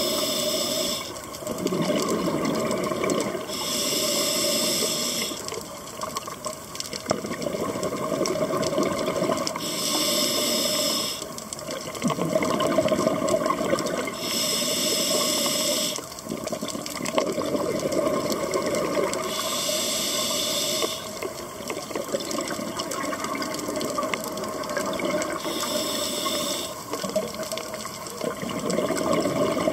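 Scuba diver breathing through an open-circuit regulator underwater: a hissing inhale about every five to six seconds, six in all, each followed by the rushing, bubbling sound of exhaled air leaving the regulator.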